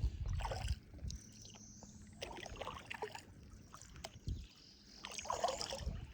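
Kayak paddle strokes dipping and splashing in the water, three strokes roughly two and a half seconds apart.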